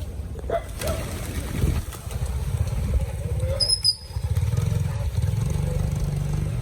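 An engine running steadily with a low hum, with a brief high chirp about four seconds in.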